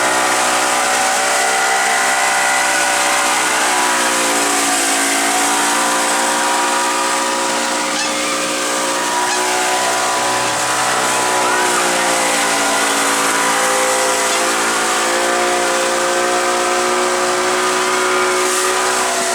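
Motorboat engine running steadily, its pitch dropping and rising again twice as the throttle eases and opens, over a constant rush of wind and water.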